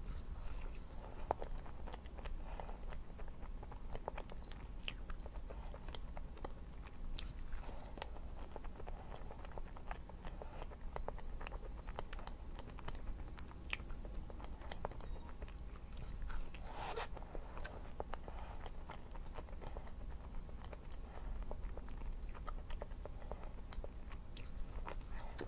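Close-miked eating sounds: a person biting and chewing food, with many small crisp clicks and crunches over a steady low hum.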